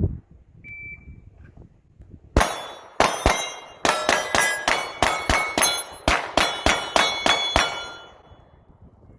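A shot timer beeps once, then a pistol fires about fifteen rapid shots at steel targets, each hit ringing the steel with a clang. The shots come in quick strings over about five seconds.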